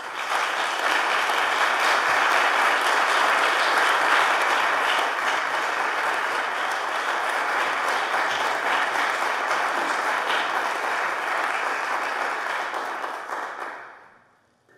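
Concert hall audience applauding, the clapping starting abruptly, holding steady, and dying away about a second before the end.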